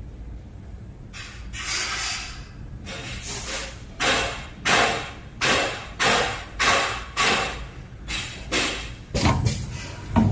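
Automatic silicone tube cutting and bonding machine at work: a rapid run of short, sharp bursts of noise, about two a second, then two heavier thuds near the end.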